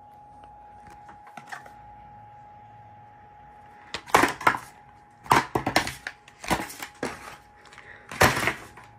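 Cardboard toy-train box being handled and pulled open: several loud crinkling, crunching bursts starting about four seconds in, over a faint steady whine.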